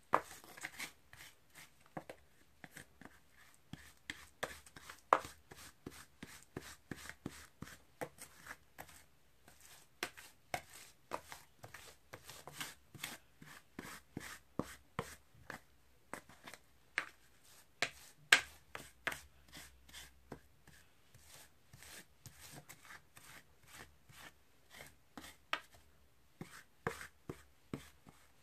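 Two plastic spatulas chopping and scraping a freezing Oreo ice cream mixture on a chilled metal rolled-ice-cream pan. It is an irregular run of sharp taps and scrapes, several a second.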